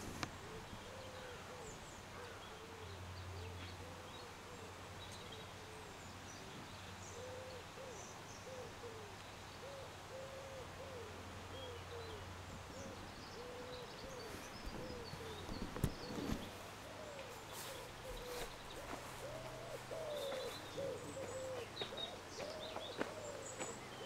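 Cooing birds calling over and over, short low arched calls following one another closely, with faint high chirps of small birds and a low steady hum beneath.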